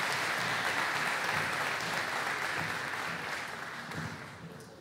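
Audience applauding, dense clapping that fades away over the last second or two.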